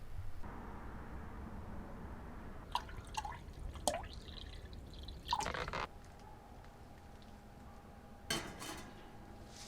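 A few separate drips and small splashes of liquid, with short clinks, over a low steady background.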